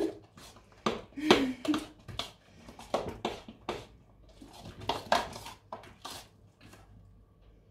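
A spoon stirring thick carrot cake batter in a ceramic mixing bowl, clinking and scraping against the bowl in irregular strokes.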